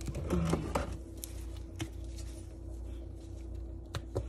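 Quiet kitchen handling noises at a sink: a few scattered sharp clicks and taps, two close together near the end, over a steady low hum. A brief murmur of a voice comes just after the start.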